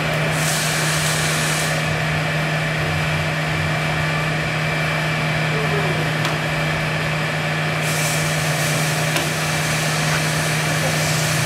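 Steady machine hum of a servo-hydraulic loading rig running a fatigue test, with a constant low drone and a faint high whine.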